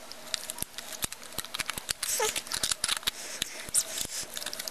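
Plastic shell pieces of a WD My Book external hard drive enclosure being handled and pushed together, with many small irregular clicks and taps as the notches are worked into their channels, and a short squeak about two seconds in.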